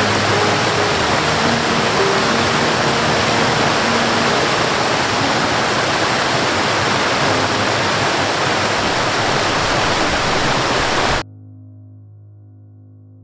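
Waterfall rushing steadily, a dense hiss of falling water, with soft background music underneath. About eleven seconds in the water sound cuts off suddenly, leaving only the faint music.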